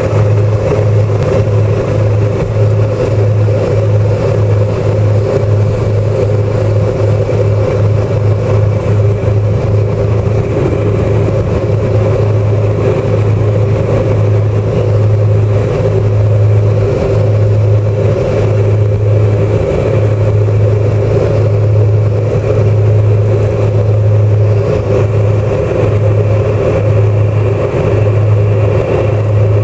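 Twin-propeller airliner's engines and propellers running, heard from inside the cabin as it taxis: a loud, steady drone with a deep hum and a higher whine.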